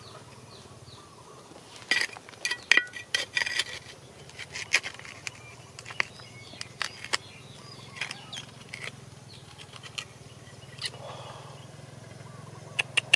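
A flat stone scraping and knocking through dry, pebbly soil as hands dig. A quick run of sharp clicks and scrapes comes about two seconds in, then scattered single clicks, over a faint steady low hum.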